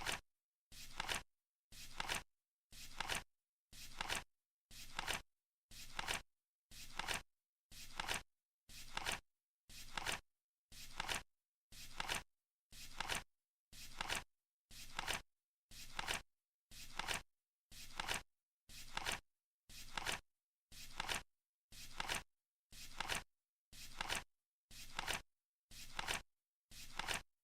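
Flip clock flipping its seconds card once every second, each flip a short sound that swells and cuts off sharply, in a steady unbroken rhythm.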